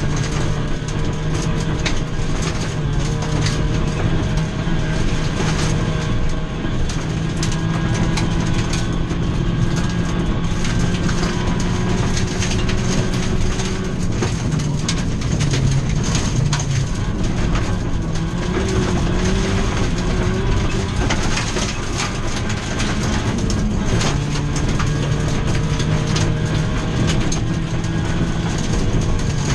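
Ford Fiesta V1600 rally car's 1.6-litre engine running hard, heard from inside the cabin, its pitch stepping up and down with gear changes, with stones from the gravel road clattering against the underbody.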